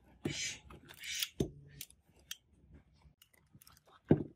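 Amplifier circuit board handled on a workbench: two short scraping rubs in the first second and a half, scattered small clicks, then one sharp knock near the end as the board is moved.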